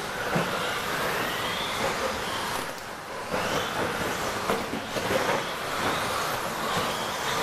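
Several 1/10-scale electric RC stadium trucks with 13.5-turn brushless motors racing on a dirt track: overlapping high motor whines rising and falling in pitch as they speed up and slow down, over tyre and chassis noise, with a few short knocks.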